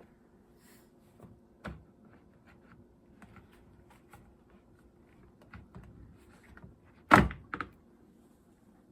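Top cover of an Echo CS-310 chainsaw being taken off by hand: scattered small clicks and taps of plastic parts, a knock near two seconds in, and two sharp knocks in quick succession about seven seconds in, the loudest sounds.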